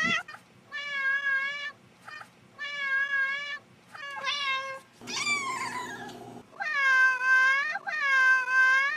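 Domestic cats meowing over and over in a run of about six drawn-out meows, each about a second long. In the middle comes a rougher call that falls in pitch, and the last two meows are the loudest.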